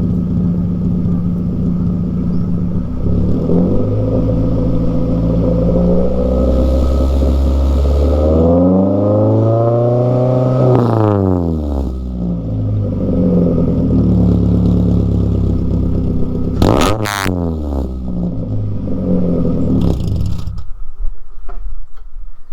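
2009 Mazda3's 2.3-litre four-cylinder with a racing header and straight-piped exhaust idling loudly, then revved: a slow rev up and back down about halfway through, and a quick sharp blip near the end. The engine is shut off about 20 seconds in.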